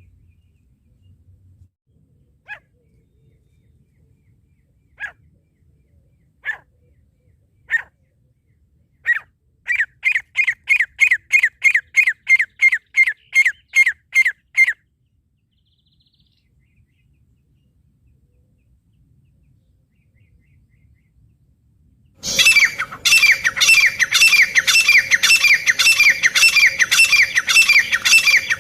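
Francolin (teetar) calls: a few single calls spaced a second or two apart, then a quick run of about three notes a second for some five seconds. After a pause, a louder, denser run of repeated calls starts about two-thirds of the way in, with a steady hum beneath it.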